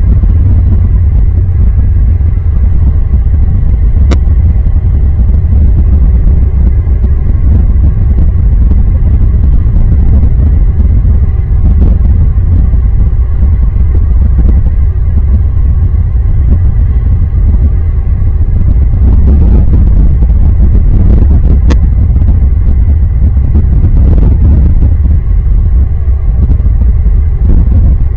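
A loud, steady low rumble, with two sharp clicks: one about four seconds in and one a little past the two-thirds mark.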